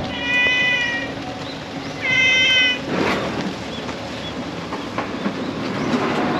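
Brown tabby domestic cat meowing twice: two short, level-pitched calls about two seconds apart.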